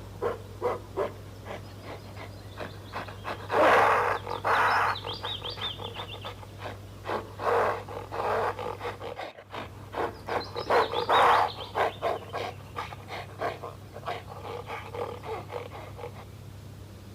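Gorilla calls: a fast run of short, panting hoots that builds to loud roaring screams. The sequence breaks off about nine seconds in and then repeats.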